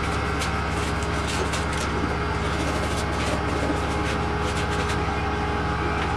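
A steady low machine hum, with many short scraping strokes over it as a foam fender form is worked by hand.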